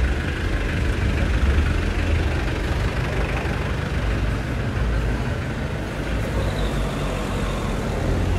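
Street traffic: motor vehicle engines running close by with a steady low rumble, under general city street noise.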